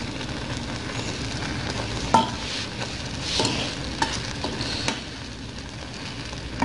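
Strawberries and sugar simmering into a syrup in an aluminium saucepan, a steady sizzle and bubbling as a spoon stirs through them, with a few sharp clinks of the spoon against the pan, the loudest about two seconds in.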